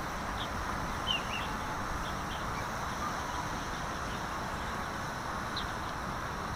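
Steady outdoor noise with wind rumbling on the microphone, and a few short, high bird chirps about a second in and again near the end.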